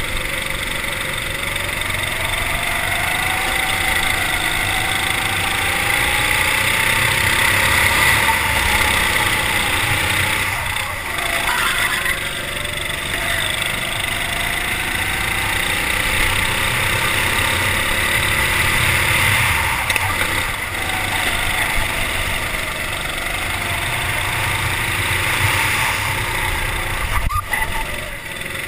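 Racing kart engine heard from on board the kart, its pitch rising along the straights and falling back each time the driver lifts for a corner, over a steady hiss.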